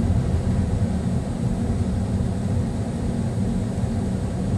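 Car cabin noise while driving: a low, steady rumble of engine and tyres on the road.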